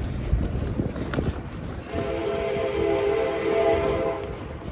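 A horn sounds a steady chord of several notes for about two and a half seconds, starting about two seconds in, over wind rumbling on the microphone.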